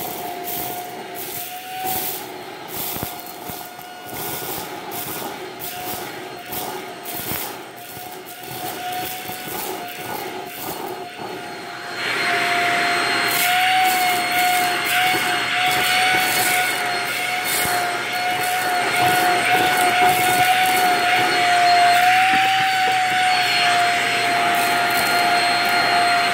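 Shark Rocket DuoClean stick vacuum running with a steady whine as it sucks dry rice grains out of a shag rug, the grains ticking and rattling through it. About halfway through the ticking stops and the vacuum suddenly gets louder, with more hiss.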